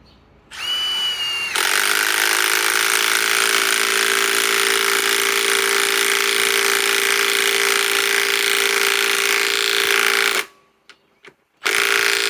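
Milwaukee M18 Fuel 2854-20 3/8-inch compact impact wrench driving a 2 3/4-inch lag screw. A brief spin-up, then about nine seconds of steady rapid hammering that stops suddenly, and one short burst near the end.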